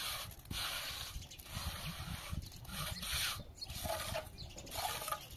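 Wet mortar being scraped and smoothed along the top of concrete blocks, in about six separate rasping strokes.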